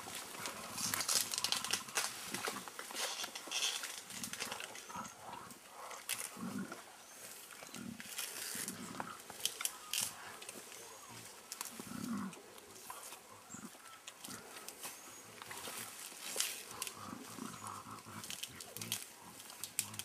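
Mountain gorillas feeding in thick leafy vegetation: leaves rustling and stems cracking and snapping, with occasional low grunts.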